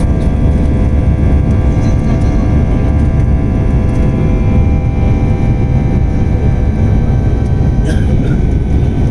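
Jet airliner cabin noise in flight: a steady, loud low rumble of engine and airflow, with a steady whine from the turbofan engines laid over it.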